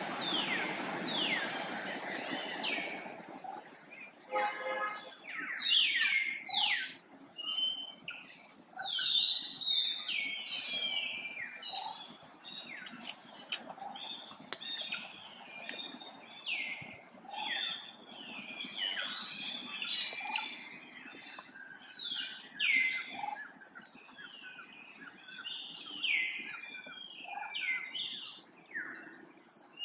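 Many birds chirping and calling together: a steady stream of short, high whistles that fall in pitch, overlapping one another, with a brief buzzy call about four seconds in.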